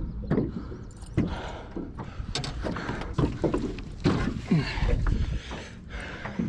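Handling noise in a small aluminum boat while a landed northern pike is held: repeated knocks and bumps on the hull and gear, and rubbing on the body-worn camera, with short falling squeaks scattered throughout.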